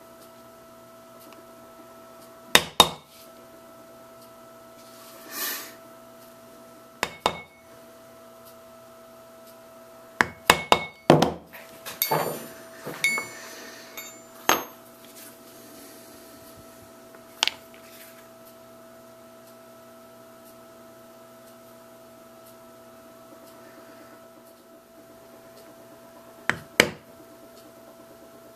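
Mallet blows on a leather stamping tool, tooling a pattern into veg-tan leather. The taps are sharp and come mostly in quick pairs, with pauses of several seconds between them and a quick cluster about ten seconds in. Around the middle there is a brief spell of tool handling and clinking.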